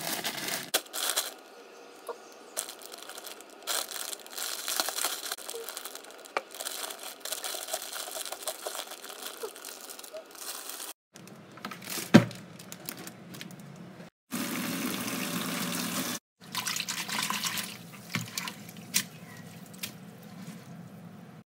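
Enoki mushrooms being unpacked and rinsed: plastic packaging rustling and clicking as it is handled, then tap water running steadily for a couple of seconds and splashing as a hand swirls the mushrooms in a bowl of water.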